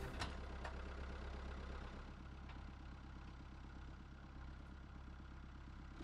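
Farm tractor engine running steadily at a low, even speed, faint, easing off in loudness over the first couple of seconds.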